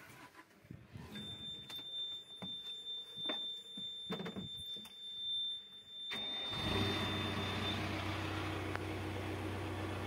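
Backhoe loader's diesel engine cranked and started about six seconds in, then running at a steady idle. Before that, a steady high-pitched warning tone sounds with the ignition on, and there are a few knocks from the operator settling into the cab.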